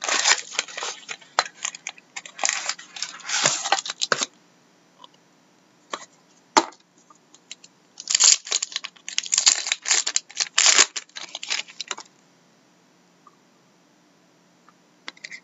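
Foil wrapper of an Upper Deck Trilogy hockey card pack crinkling and tearing open by hand, in two spells of dense crackling: one through the first four seconds and another from about eight to twelve seconds in, with a few stray crackles between.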